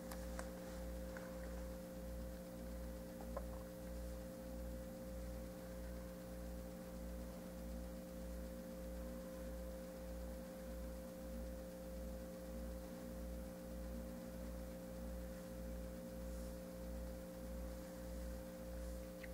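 Faint steady electrical hum made of several steady tones, with a low throb that pulses a little more than twice a second; room tone with no handling of the toy.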